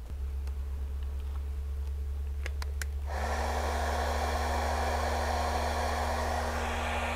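Cordless heat gun switched on about three seconds in after a few faint clicks, then blowing steadily with a fan hiss and a steady hum, heating a vinyl tube so it will slip over the shaft.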